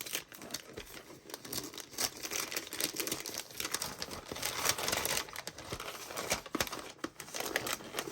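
Gift wrapping paper being torn and crumpled by hand, a continuous irregular crackling rustle.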